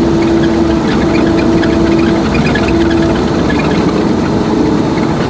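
Heavy vehicle's engine running steadily under way over snow, a low rumble with a steady hum that eases slightly about three seconds in.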